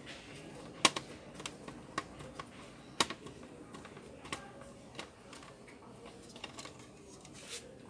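Scattered small clicks and taps of a screwdriver turning screws out of the plastic underside of a Toshiba Satellite C640 laptop, the sharpest about a second in and about three seconds in.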